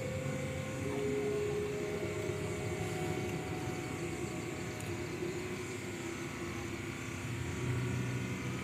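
Steady low mechanical drone, like a small engine running without change, with a few faint held tones over it.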